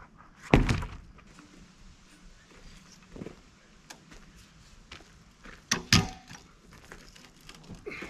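Heavy wooden thunks and knocks from handling timber at a sawmill: sawn slabs and the log-turning hook against the log. The loudest thunk comes about half a second in, with two more close together around six seconds.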